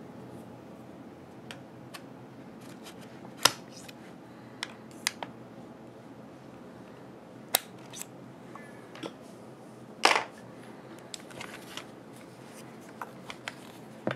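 Scattered sharp metal clicks and taps as the takedown and pivot pins of a .50 Beowulf AR-15-platform rifle are pushed out with a tool and the upper receiver is separated from the lower. The loudest click comes about ten seconds in.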